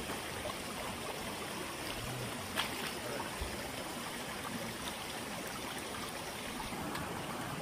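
Shallow rocky stream trickling steadily over stones, with one brief sharp tap about two and a half seconds in.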